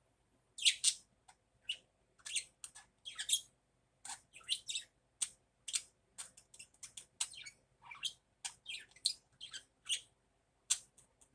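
Budgerigar chirping and chattering in a quick, irregular series of short, sharp calls, starting about half a second in.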